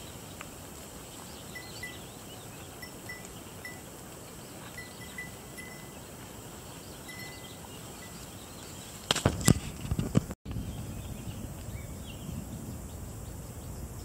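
Outdoor ambience: a steady noise bed with a string of faint, short, high chirps through the first half. A few loud sharp knocks come about nine seconds in.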